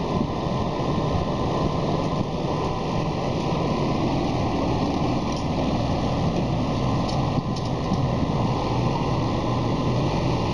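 A hydraulic boom crane's engine runs steadily while the crane holds a heavy load in the air. A few faint clicks come in the second half.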